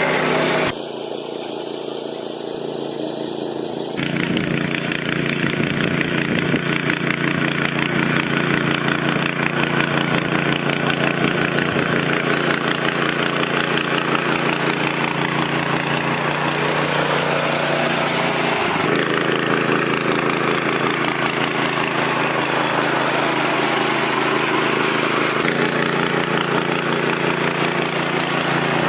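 Machine engine running steadily, changing abruptly several times as the sound cuts from one working machine to another.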